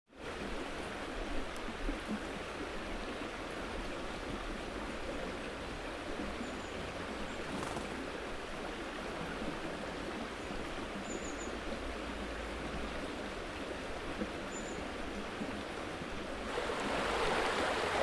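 River water flowing steadily over a shallow, rocky bed. About sixteen and a half seconds in, it swells into a louder, hissier rush, with a few faint high chirps along the way.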